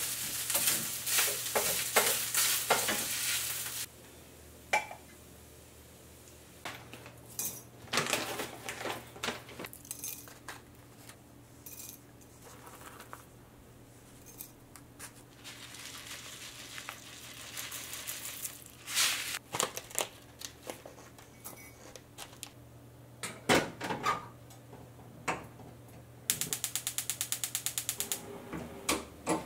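Kitchen sounds: a sizzling hiss for the first few seconds that stops abruptly, then scattered clinks and knocks of dishes and utensils, another hissing stretch midway, and a rapid run of clicks near the end, over a low steady hum.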